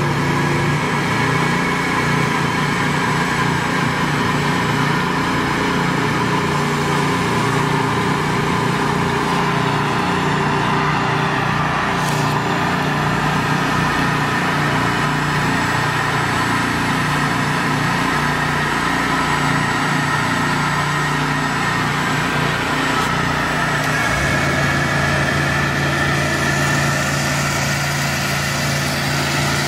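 Small engine of a trailer-mounted hot-water pressure-washer rig running steadily, with a steady hum. Its low note shifts once, about four-fifths of the way through.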